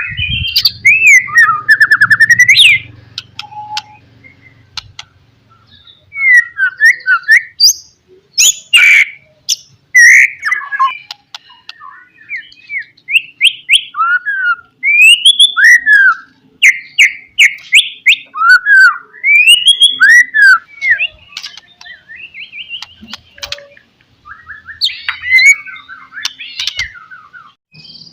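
White-rumped shama (murai batu) singing: a long run of loud, varied whistled phrases, with sharp rising and falling notes and fast trills broken by short pauses.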